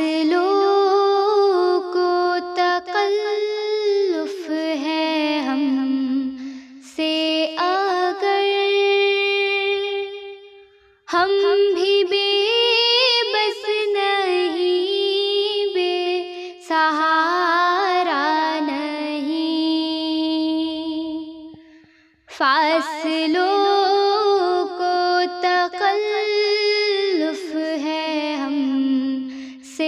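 A young girl singing a naat, an Urdu devotional song in praise of the Prophet, solo with no instruments. She sings long phrases with wavering held notes, taking short breaths between them.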